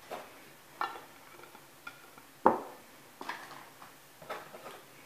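Light knocks and clicks of kitchenware being handled as savoiardi biscuits are taken from their plastic packaging tray: about eight separate small knocks, the loudest about two and a half seconds in.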